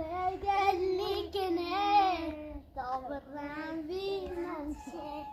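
A young child singing in long, wavering notes with a few short breaks.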